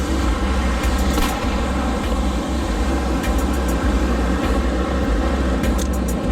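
Wind buffeting the microphone in a choppy low rumble, over a steady rush of breaking surf.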